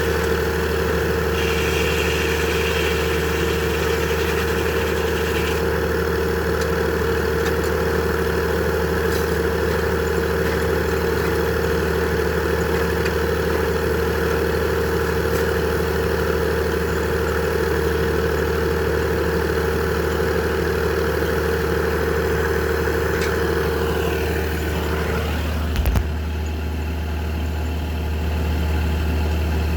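Engine-driven Frick sawmill running steadily, a deep hum under a steady whine. Near the end the whine drops in pitch, and a single thump follows shortly after.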